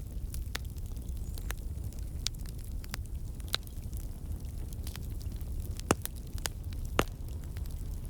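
Fire burning in a fireplace: a steady low rumble of flames with scattered crackles and pops, two sharper pops near the end.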